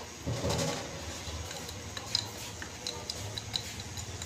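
Light, irregular metallic clicks and taps as the parts of a forklift starter motor are handled and fitted together by hand.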